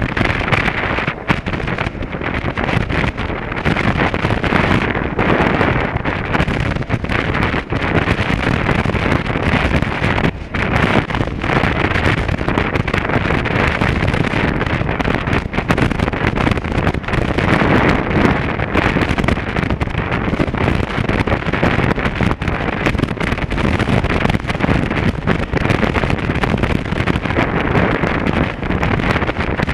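Wind buffeting the microphone of a camera on a moving motorcycle, over the bike's engine and road noise, steady with a few brief dips in level.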